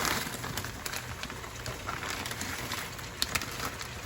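Chicken and frozen onion-and-pepper fajita blend sizzling in hot oil in a skillet, a steady hiss with scattered pops and crackles.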